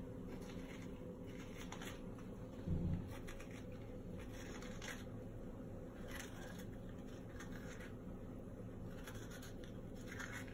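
Spoon scraping the flesh out of a round courgette in short, irregular scratchy strokes, with one dull low bump about three seconds in.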